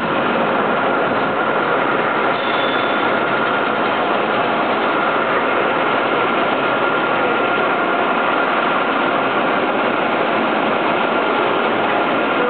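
Steady machinery noise of an EPS foam block-moulding plant: an even, loud rush with a faint steady whine on top.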